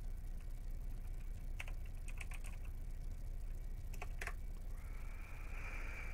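Computer keyboard keys being typed in two quick runs, about two seconds in and again around four seconds in, over a low steady hum. A short hiss rises near the end.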